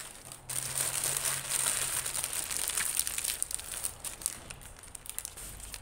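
Paper Subway sandwich wrappers being crumpled and folded up by hand: a dense crinkling that starts about half a second in and eases off near the end.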